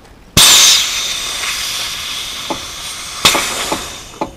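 Compressed air hissing out through the valve of an RV's front suspension airbag as it is deflated. The hiss starts suddenly and loud about a third of a second in and slowly fades, with a few short clicks in its second half.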